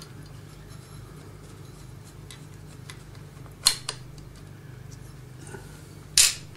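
Small metal clicks as the spring clips holding the projector's drive-shaft bearings are worked loose with a tool: two light clicks about midway and a sharper one near the end, over a steady low hum.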